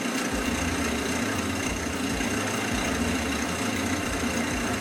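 Wood lathe running steadily as it spins a paint-covered canvas: an even motor hum with a constant rushing noise.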